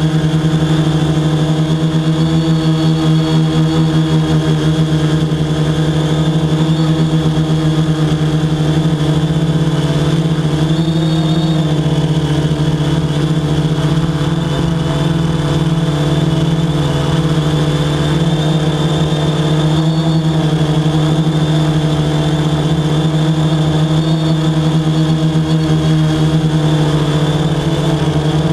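Quadcopter drone's electric motors and propellers humming steadily at one pitch, with a brief waver in pitch about eleven seconds in.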